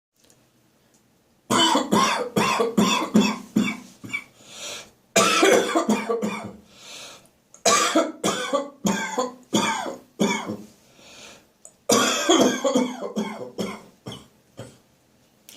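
Chesty coughing from a throat full of catarrh: four bouts of rapid, loud coughs, each a run of several hacks, with drawn breaths between them. It starts after a second and a half of quiet.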